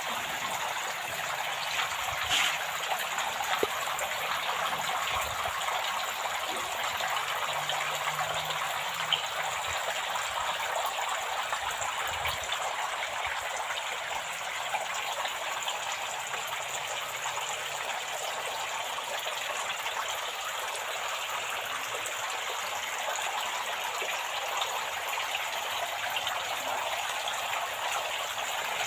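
Water running steadily down an evaporative cooling pad and splattering into the gutter beneath it, as the pad's water flow is tested.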